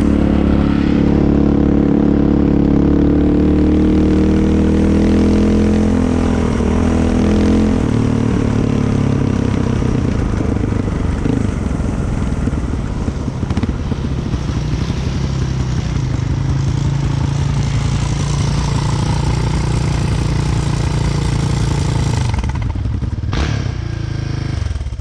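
Off-road vehicle engine running under load on a trail. It pulls with a higher, strained tone for the first several seconds, then settles lower and steadier. The engine sound drops away near the end, just after a single knock.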